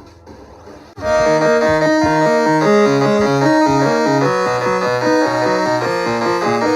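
Background music: a quiet beat, then about a second in a loud melodic passage starts, with held chords and a stepping bass line.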